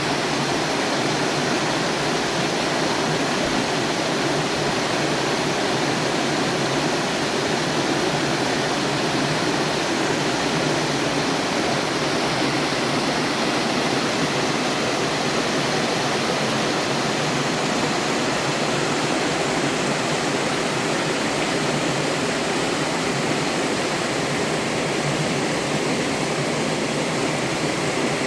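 Mountain-stream slide waterfall, water pouring down over sloping rock in a steady, even rush.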